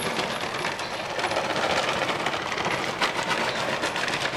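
Shredded cheese shaken from a plastic bag onto a sauced pizza base: a steady dense patter of strands landing, with the bag rustling and a couple of louder ticks.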